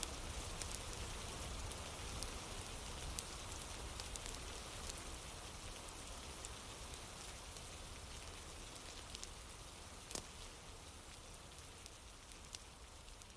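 Steady rain falling, with scattered sharp little clicks, gradually fading out.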